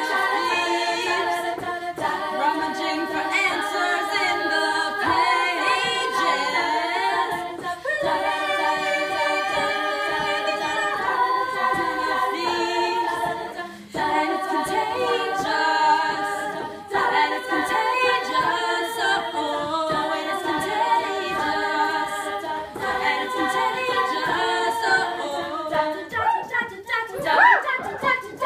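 Female a cappella group singing in close harmony, with held chords that change every second or two. The singing dips briefly about halfway through and turns to short, choppy notes near the end.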